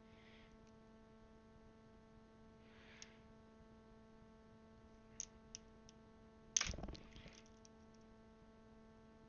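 Small plastic mechanical-keyboard parts being handled: a few light clicks just past the middle, then one sharper click about two-thirds through followed by a few faint ticks, over a steady faint electrical hum.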